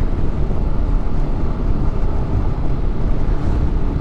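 Wind buffeting the microphone of a motorcycle rider on the move: a loud, steady low rumble of wind noise with no clear engine note above it.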